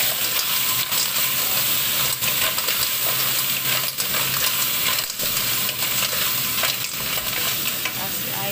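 Clams frying in hot oil with ginger in a wok, sizzling steadily while a wooden spatula stirs them, with many short clicks of shells knocking against the pan.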